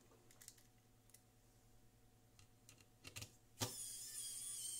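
A few light clicks, then about three and a half seconds in a click and an electric precision screwdriver starting up with a steady high whine. It is turning one of the short black screws, which is worn out and doesn't grip anymore.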